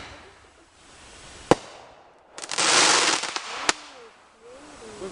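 Fireworks going off. There is a sharp bang about a second and a half in, then a loud crackling burst lasting about a second, and another sharp bang shortly after.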